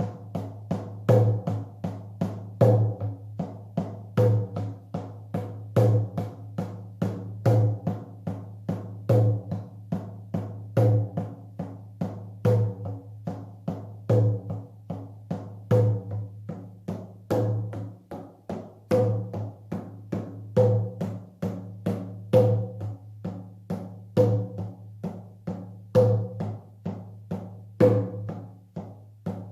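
Shamanic drum beaten in a steady, repetitive trance rhythm of about three strikes a second, with a deeper accented beat about every second and a half.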